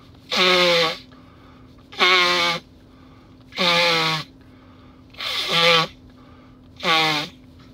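A person with a cold sneezing five times in a row, each sneeze a loud, honking voiced blast of about half a second, evenly spaced about a second and a half apart.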